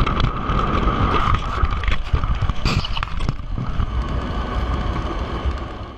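O scale model train's passenger cars rolling over the track, heard from a camera riding on the train: a steady rumble, a high whine for about the first second, and a few sharp clicks a little before halfway. The sound fades toward the end.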